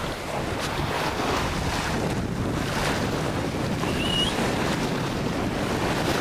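Wind buffeting the camera microphone in a steady rumble, with small waves washing onto the sand beneath it. A brief high chirp sounds about four seconds in.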